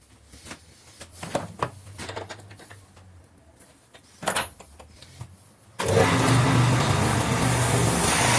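A few knocks and clicks of wood and tools being handled, then about six seconds in a wood lathe starts suddenly and runs on steadily with a low hum and a loud hiss.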